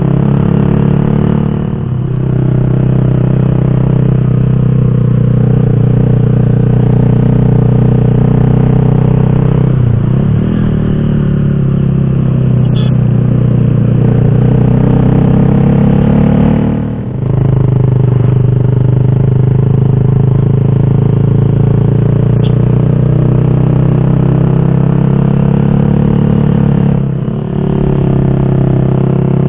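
Motorcycle engine running steadily under way, its pitch and loudness dipping briefly and picking up again about 2, 10, 17 and 27 seconds in.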